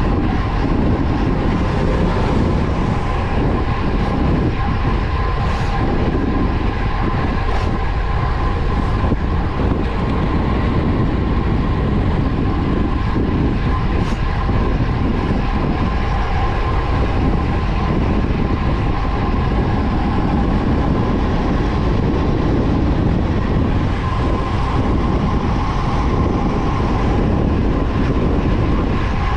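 Wind rushing over the microphone and tyre rumble on asphalt from a road bike descending at speed, a steady loud noise with a faint constant hum running through it.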